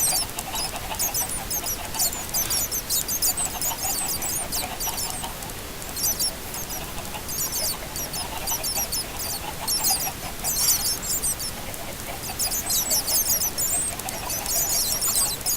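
A flock of chickens calling all at once: many short, high chirps and peeps overlap without a break, over fainter lower calls.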